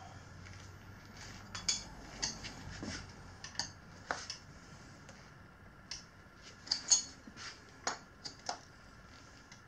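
Metal tools and the wheel rim clinking and tapping as a tire is worked onto a motorcycle rim, in irregular sharp clicks with pauses between them, loudest about seven seconds in.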